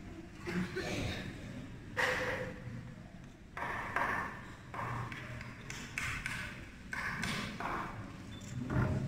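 Irregular taps and knocks from the nails being worked out of a wooden crucifix to free the figure of Christ.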